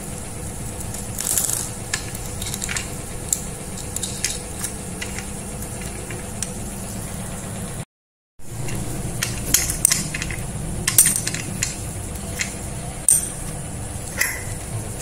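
Small metal clicks and light rattles of a bolt and nut being handled and fitted into the steel handle bracket of an angle-grinder cutting stand, over a steady hum and hiss. The sound cuts out completely for a moment about halfway through.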